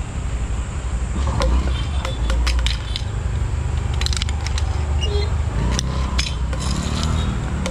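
Steady low rumble of background noise, with scattered sharp clicks and taps through the middle.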